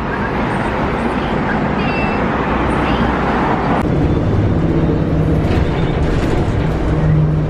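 Interior of a moving city bus: engine and road noise, with a loud hiss that cuts off suddenly about four seconds in, leaving a low steady engine hum.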